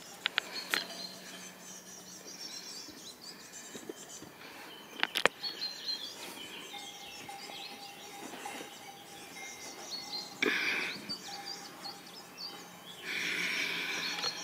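Birds chirping and calling, with louder bursts of song about ten and thirteen seconds in. A few sharp knocks of the camera being handled come near the start and once about five seconds in.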